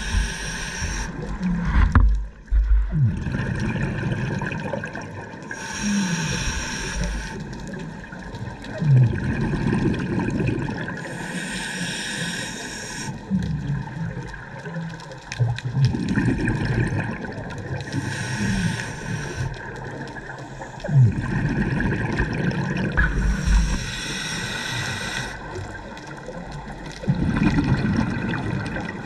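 Scuba diver breathing through a regulator underwater: a bubbling burst of exhaled air about every six seconds, with gurgling in between.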